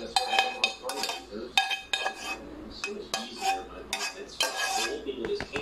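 Metal cookware clattering: a metal ladle scraping and clinking in a stainless steel pan while a steel pot lid is handled. It makes a quick, irregular run of sharp clinks that ring briefly.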